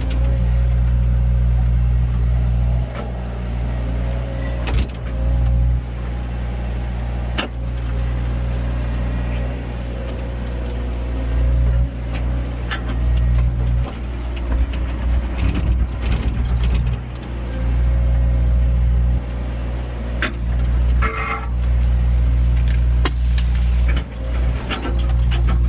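Heavy machine's engine running with a deep steady hum, its level rising and falling as it works, with several sharp knocks and cracks scattered through.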